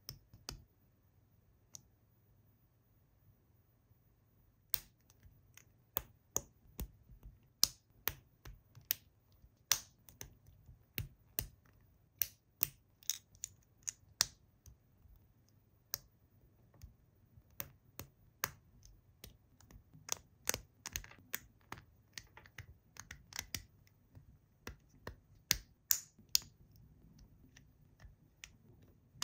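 Small plastic LEGO bricks and plates clicking as they are pressed and snapped together by hand: a run of sharp, irregular clicks, about two a second, starting a few seconds in.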